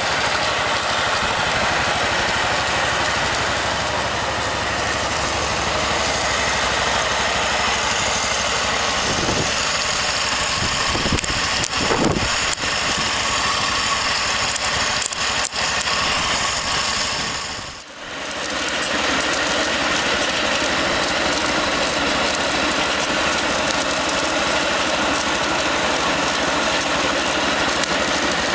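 Car engine running with steady road and cabin noise while driving, with a few knocks in the middle and a brief dip in level about two thirds through.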